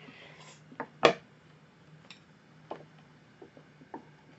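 Eating utensils knocking on tableware: a metal spoon and chopsticks click several times against a wooden cutting board and a glass dish, with one sharp knock about a second in.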